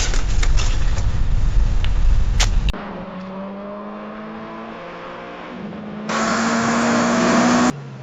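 Sound-effect clips of a car crash edited back to back. First a loud rumbling crash noise with a few sharp clatters, cut off abruptly under three seconds in. Then a car engine runs with slowly rising pitch, joined about six seconds in by a loud hiss of skidding tyres that stops suddenly.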